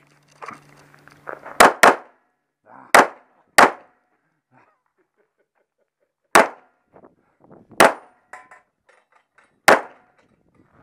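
Handgun shots fired one at a time on a shooting course: a quick pair about a second and a half in, then single shots spaced about one to two seconds apart, about seven in all, with one more right at the end.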